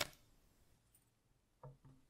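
Wooden block knocked lightly twice against the workbench top near the end, each knock with a short low ring; otherwise near silence.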